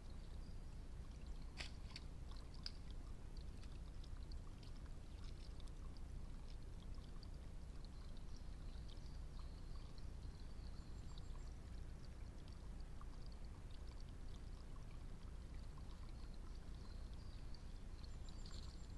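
Faint, steady outdoor background noise on a trail camera's microphone, with scattered short high chirps and ticks and one sharp click about a second and a half in.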